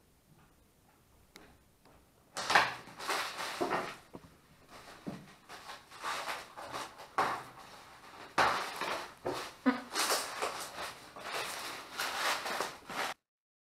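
Cardboard and plastic wrap rustling and scraping in irregular bursts as a cat climbs and paws about inside a large torn cardboard box, cutting off abruptly near the end.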